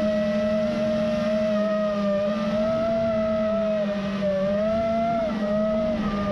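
FPV quadcopter drone's motors whining steadily, the pitch wavering slightly up and down.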